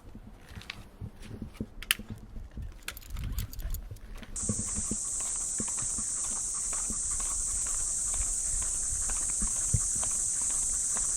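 Footsteps on a park path. About four seconds in, a cicada suddenly starts a steady, high buzz that carries on, with the steps still heard beneath it.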